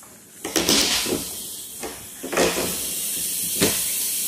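Water spraying from a float valve's inlet into a plastic water tank, a steady hiss as the tank fills with the valve open. It comes in loudly about half a second in, with a few bumps along the way.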